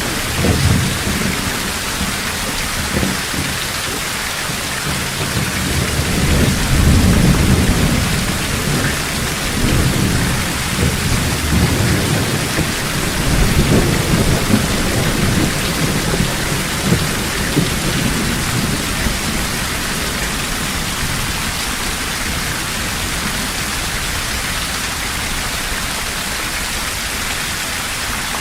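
Heavy steady rain with rolling thunder: low rumbles swell in the first half and die away, leaving the hiss of the downpour.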